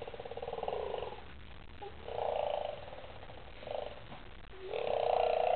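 A young boy making rattly, purring noises with his voice, in four drawn-out bursts, the last and loudest near the end.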